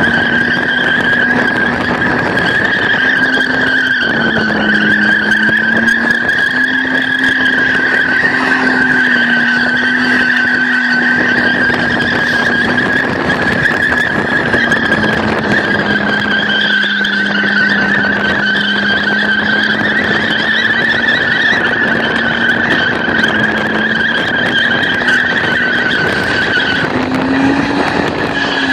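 BMW 320i's M50B20 2.0-litre inline-six held at high revs while the rear tyres spin and squeal in a continuous burnout, the engine pitch wavering a little as the car slides. The tyre squeal breaks off briefly near the end, then starts again.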